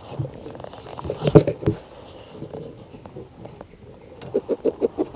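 A freshly landed trevally thrashing in a landing net on the wooden floor of a small boat, knocking against the planks. There is a cluster of knocks about a second and a half in, then a rapid run of knocks, about seven a second, near the end.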